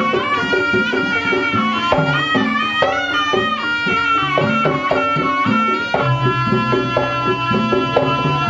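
Kuda kepang accompaniment music: a nasal reed pipe (slompret) plays a wavering melody over drums and gamelan percussion. The pipe holds one long note over the last two seconds or so.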